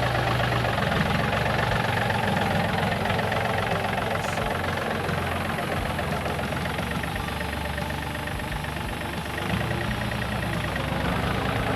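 Diesel engine of a John Deere 4410 compact tractor running steadily.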